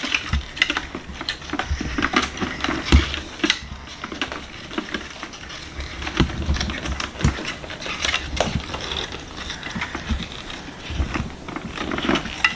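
Play paper money being handled and counted, rustling, with scattered light clicks and taps at a plastic toy cash register drawer.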